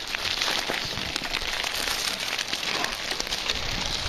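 Mountain bike rolling over a gravel and dirt trail: a steady crackling rush of tyres on loose gravel, dense with small clicks and rattles.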